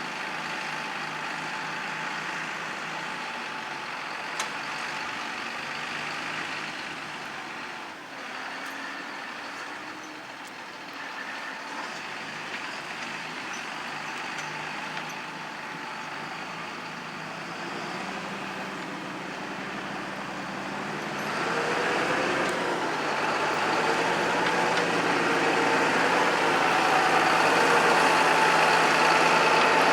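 Tractor engine running steadily under load, growing louder about two-thirds of the way through, its pitch wavering slightly.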